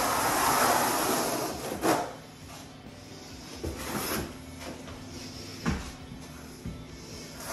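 Notched trowel scraping thinset mortar across a floor. A louder rush of scraping in the first two seconds ends in a sharp knock, then quieter scrapes with a few taps of the trowel.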